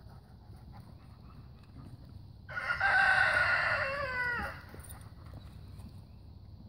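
A rooster crowing once, about two and a half seconds in: one loud call of about two seconds that drops in pitch at the end.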